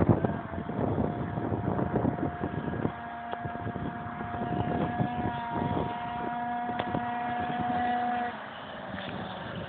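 Tuned two-stroke scooter with a Hebo Manston Revolution expansion exhaust running flat out at a steady high pitch. The engine note holds constant for about eight seconds, then drops away suddenly near the end, with wind rushing over the microphone throughout.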